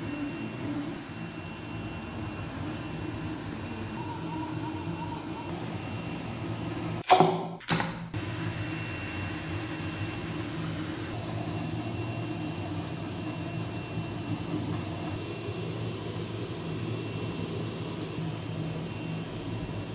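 FLSUN V400 delta 3D printer running: a steady hum of its motors and cooling fans with a faint high whine. About seven seconds in, two short loud bursts cut through it.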